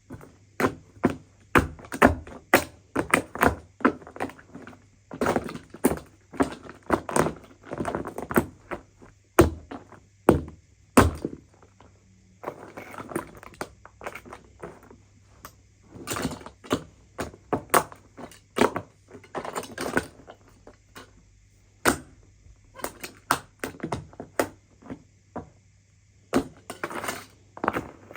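Broken coffee machine being knocked and pried apart: a run of irregular thunks, knocks and cracks, often several a second with brief pauses, over a faint steady low hum.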